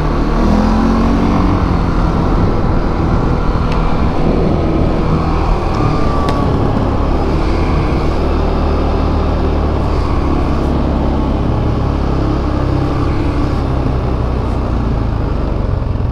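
CF Moto ATV engine running steadily under way, with heavy low rumble. The revs rise briefly about a second in.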